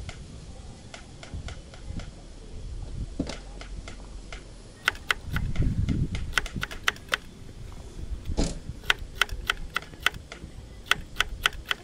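Kitchen knife slicing a cucumber on a wooden cutting board: quick, sharp taps of the blade on the board, about four a second, starting about five seconds in, with a brief pause partway.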